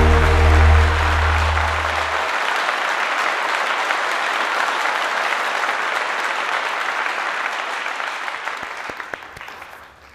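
Audience applauding, the clapping dying away near the end. The last notes of a piece of music fade out in the first two seconds under the applause.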